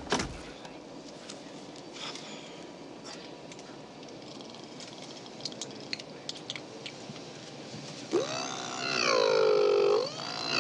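A thump right at the start, then a steady airliner cabin hum with faint clicks. About eight seconds in, a man starts making loud vocal sound effects with his mouth, sliding up and down in pitch.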